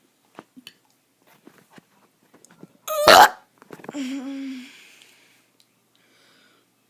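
A kid's forced burps: faint clicks, then a loud, sharp burst about three seconds in, followed by a lower, steadier burp lasting about a second.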